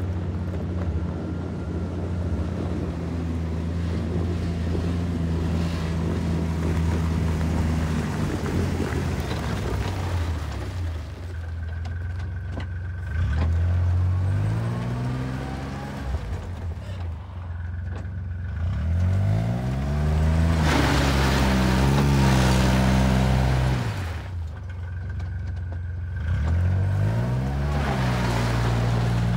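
Tinger Track TR5 tracked ATV's engine running: it holds a steady idle at first, then revs up and down several times as the vehicle moves off.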